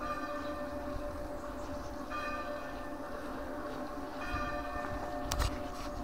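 A bell tolling, struck about every two seconds, its hum ringing on between strokes.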